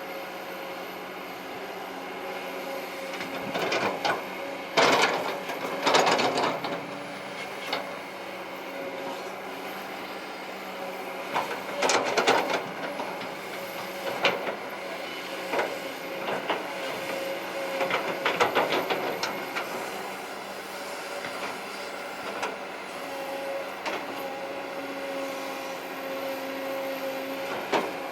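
Kobelco SK200-8 Super XM excavator's diesel engine and hydraulics running with a steady hum, broken by louder bursts of rattling and clatter about four seconds in, around twelve seconds and again near nineteen seconds as the machine works.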